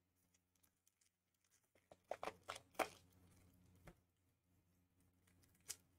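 Near silence with a faint low hum, broken by a few short clicks and rustles of trading cards being handled, in a cluster about two seconds in and once more near the end.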